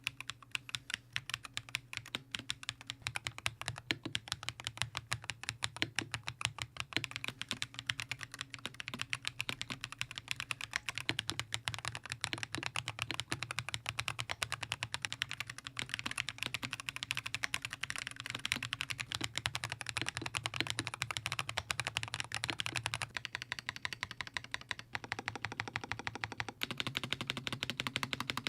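Rapid, continuous typing on a Razer BlackWidow V4 75% mechanical keyboard that has been fully lubed: switches with Krytox 205g0, springs with Krytox 105, stabilizers with Permatex. The keys clack quickly and evenly, many strokes a second.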